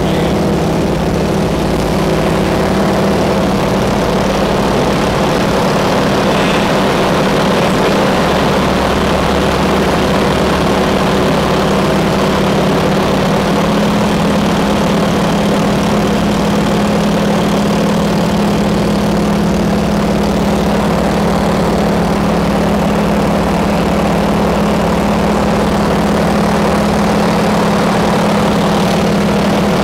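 Nanchang CJ-6A trainer's nine-cylinder radial engine and propeller running steadily in flight, heard from inside the cockpit. It is a loud, even drone with a strong low hum and small shifts in pitch.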